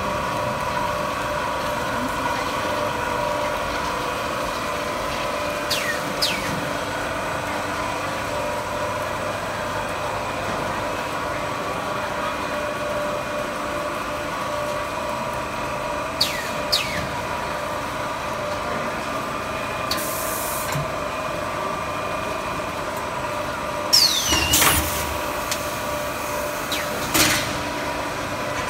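Stretch film casting line running: a steady machine hum with several held tones. A few brief high squeals fall in pitch, a short hiss comes about two-thirds of the way in, and there is a louder knock near the end.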